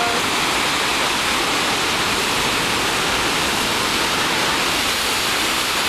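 Heavy ocean surf breaking over a rocky lava shore, a steady roar of churning white water.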